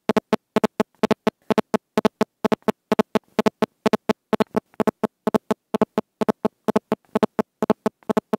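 A rapid, steady train of short electronic beeps, about five a second.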